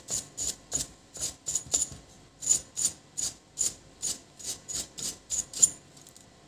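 About fifteen quick scraping strokes, roughly three a second, from a hand working at the circuit board of an open computer power supply; they stop about six seconds in.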